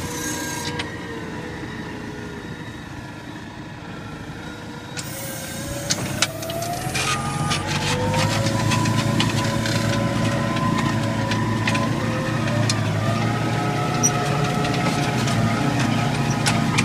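Claas Arion 440 tractor's four-cylinder diesel engine running under load with the plough; about halfway through its pitch rises as it revs up, then holds higher and louder, with a few sharp clicks as it picks up.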